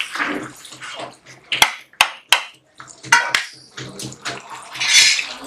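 Metal ladle stirring chicken curry in a kadhai: the thin gravy sloshes and bubbles, with about four sharp clinks of the ladle against the pan in the middle and a louder swish near the end.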